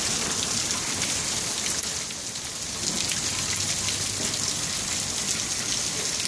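Heavy rain pouring down onto rooftops and a balcony: a steady dense hiss with many individual drops tapping close by, easing slightly about two seconds in before picking back up.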